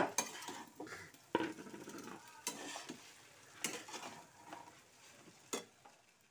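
Metal spatula scraping and knocking against a frying pan as chow mein noodles are stir-fried, in irregular strokes that thin out near the end, over a light sizzle from the frying.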